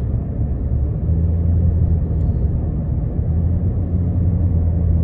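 Steady low drone of a car cruising at motorway speed, heard from inside the cabin: road and engine rumble.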